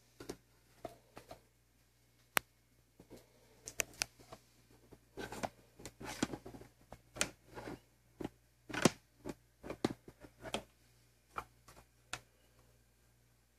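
Irregular small clicks and rubbing noises, typical of a handheld camera being handled as it moves, over a faint steady low hum. The loudest click comes about nine seconds in.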